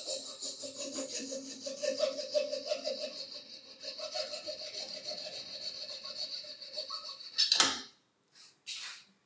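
A fine-toothed hand saw blade cutting through a small plastic gear clamped in a steel vise, in fast, even back-and-forth strokes, several a second. As the cut finishes there is one louder scrape, then a few short bursts of hiss.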